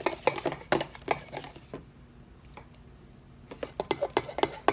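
A utensil stirring frosting in a bowl, with quick clicks and scrapes against the bowl, pausing briefly about two seconds in before the stirring resumes.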